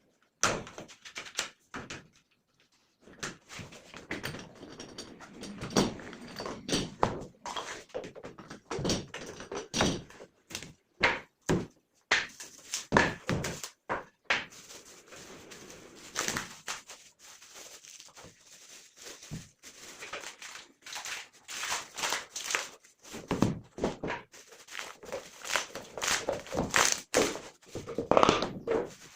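Wooden strips knocking and clattering as they are handled and tapped together, in irregular knocks and thuds with short pauses between.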